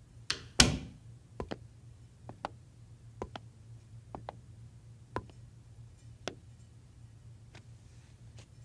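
A wooden door swings shut with a thud, the loudest sound, then hard-soled shoes click across a tiled floor, about one step a second, over a low steady hum.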